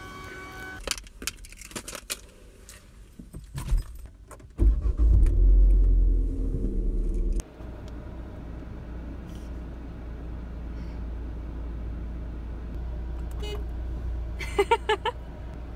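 Keys jangling with clicks and knocks, then a car engine starts with a loud low rumble about four and a half seconds in and drops to a steady idle, heard from inside the car.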